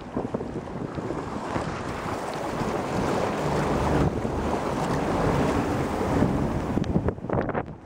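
Bow wave of a fiberglass SF Pelican sailboat rushing and splashing as the hull drives through choppy water on a broad reach in a fresh breeze, with wind buffeting the microphone. It swells over the first few seconds and eases near the end.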